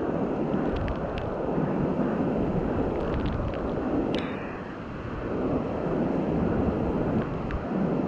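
Strong wind buffeting the microphone in gusts, a dense low rumble that eases briefly about halfway through, with a few faint ticks.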